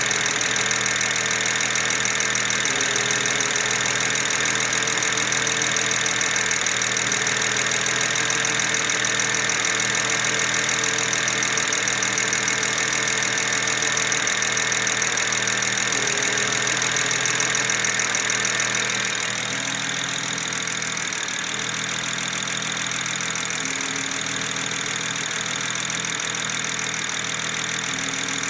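BMW 335i's N54 twin-turbo straight-six idling roughly, the owner taking it for a misfire that throws no fault code. It runs steadily and gets slightly quieter about two-thirds of the way in.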